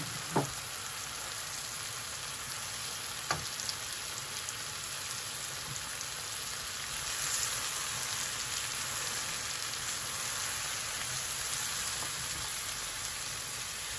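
Sliced courgette frying in onion-tomato masala in a frying pan: a steady sizzle, a little louder in the second half, with a couple of sharp knocks of the spatula against the pan near the start and about three seconds in.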